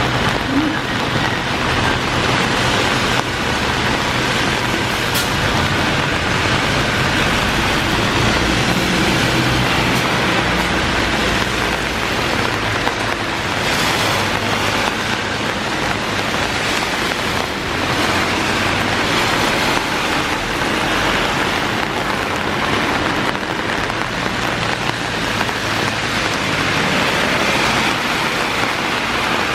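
Heavy rain falling steadily, with a car going by on the wet road in the first half: a low engine hum and tyre hiss that fade out around the middle.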